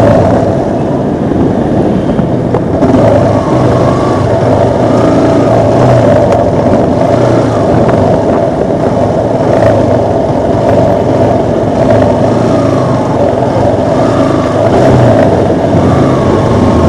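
Motorcycle engine and road noise while riding in city traffic: a loud, steady drone.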